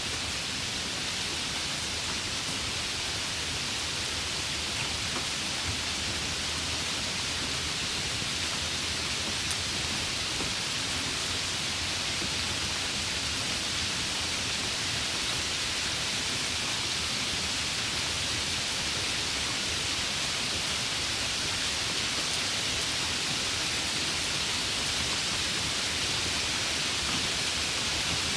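Steady rain falling, an even hiss with no breaks or swells.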